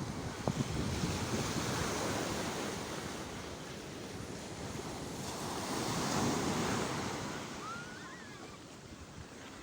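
Sea waves washing onto the shore, swelling twice about five seconds apart, with wind buffeting the microphone. A brief faint chirp near the end.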